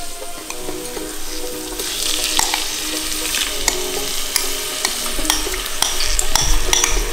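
Quinoa poured into the hot, ghee-coated pot of an Instant Pot on sauté, sizzling as it hits, while a metal spoon scrapes and taps against a glass bowl to knock out the last grains. The sizzle grows stronger about two seconds in, with many small sharp clicks from the spoon.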